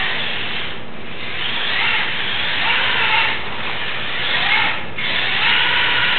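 Radio-controlled car driving and drifting on a tile floor: its motor whines, rising and falling in pitch with the throttle, over a steady hiss of tyres scrubbing across the tiles. The sound eases off briefly about a second in and again near the end.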